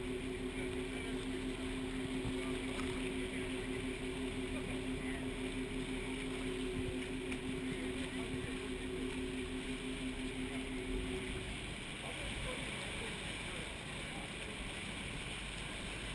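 Maid of the Mist tour boat under way: a steady engine hum over a constant rush of wind and water. The hum cuts off about eleven seconds in, leaving only the rush.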